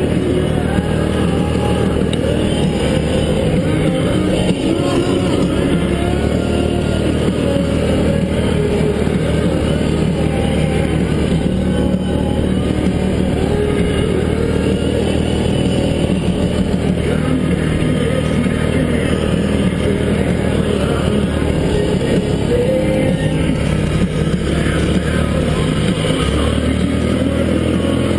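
ATV engine running steadily under way on a trail ride, holding an even pace with no big revs.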